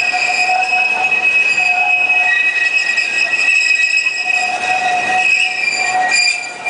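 Alishan Forest Railway narrow-gauge steam train rounding a curve, its wheels squealing in several steady high-pitched tones over the rumble of the train.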